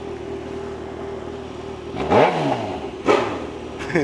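Motorcycle engine idling, with two quick throttle blips, about two seconds in and again about a second later, the revs rising and falling back each time.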